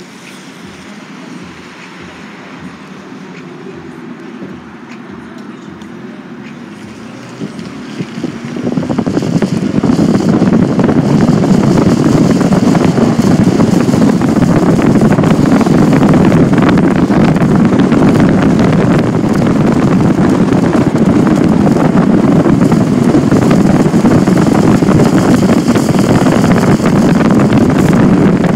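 Car interior with a low engine hum while stopped, then the car pulling away: from about eight seconds in, loud steady wind noise on the microphone as it gathers speed.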